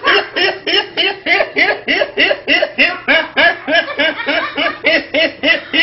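A boy laughing hard in a rapid, even string of high, pitched "hee" pulses, about four a second, without a break.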